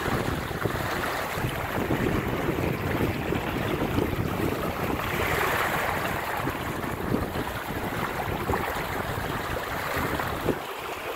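Steady wind noise buffeting the microphone over the rush and slap of choppy water along the hull of a small sailboat under way.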